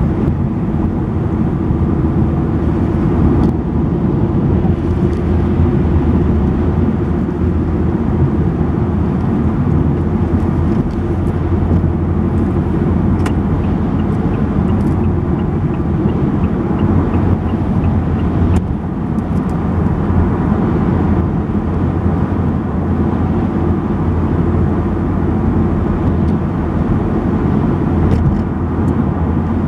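A car driving steadily at road speed, heard from inside the cabin: a steady low rumble of tyres and engine, with a few faint clicks.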